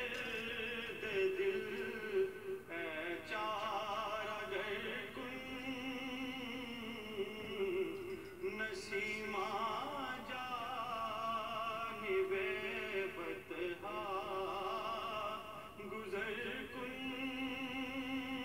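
Music with a singing voice in long held notes with a heavy vibrato, in an operatic style, briefly pausing between phrases.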